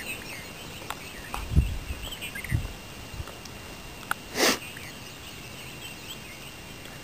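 Quiet outdoor ambience with faint, scattered bird chirps. Two low thumps come in the first few seconds, and a short rushing noise about four and a half seconds in.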